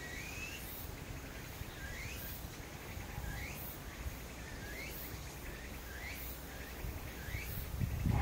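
Outdoor ambience: a bird repeats a short rising chirp about every second and a bit, six times, over a steady low background rumble.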